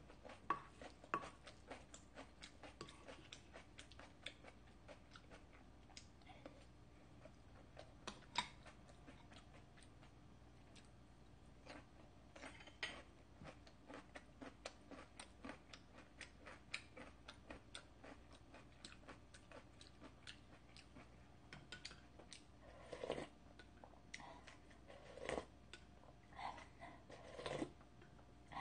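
Faint mouth sounds of a person chewing food, a scatter of short soft clicks, with a few louder clicks near the end as a wooden spoon scoops from a bowl.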